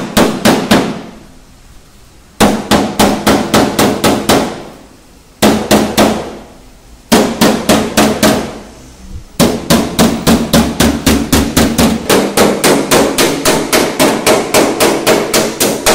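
Panel-beating hammer blows on the sheet-metal boot lid of a BMW X4, knocking out a crushed dent, with the panel ringing after each strike. The blows come in several short rapid runs with pauses between them, then settle into a steady run of about four a second over the second half.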